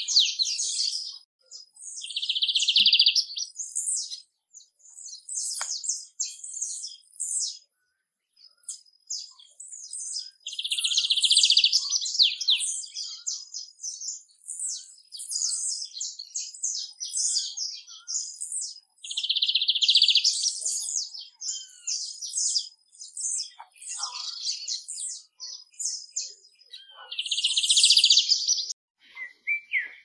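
Lined seedeater (bigodinho) singing: repeated song phrases a few seconds apart, each opening with a fast, dense trill and running on into a quick string of high, twittering notes.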